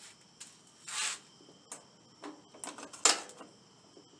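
Scattered clicks and rustling from handling, with louder rustles about a second in and about three seconds in, over a faint steady high-pitched whine.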